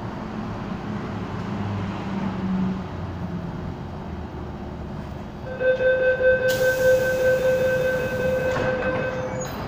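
MTR Island Line M-Train standing at the platform with a low hum. About halfway through, the door-closing warning sounds as a steady high-pitched tone for about four seconds, with a hiss over part of it.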